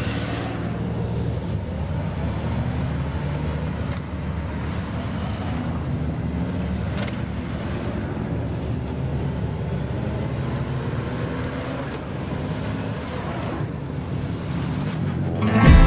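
A column of Honda Gold Wing motorcycles and sidecar outfits riding slowly past, a steady mix of engine hum and road noise with the pitch of passing machines sliding down as they go by. Music cuts in just at the end.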